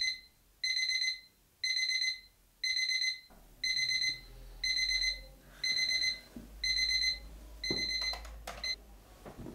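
Small battery alarm clock beeping: a short burst of high electronic beeps about once a second. The last burst is cut short near the end, among a few soft knocks and rustles as the alarm is stopped.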